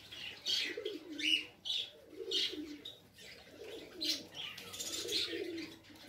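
Fantail pigeons cooing: a run of low coos, each sliding down in pitch, one after another, with short high chirps mixed in.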